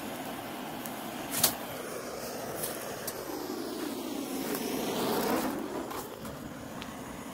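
A road vehicle passing by, its noise swelling to a peak about five seconds in and then fading. There is a single sharp knock about one and a half seconds in.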